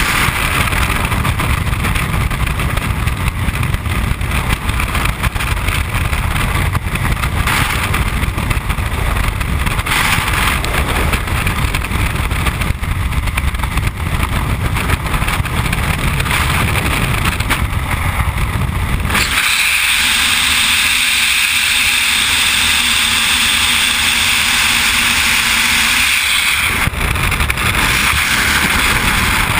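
Freefall wind rushing over a skydiver's camera microphone, a loud steady roar. About two-thirds through, the deep rumble drops away and a higher hiss takes over for several seconds before the rumble comes back.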